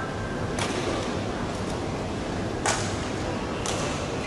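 Badminton racket strings hitting a shuttlecock: three sharp cracks, the last two about a second apart, over the steady background of a large hall.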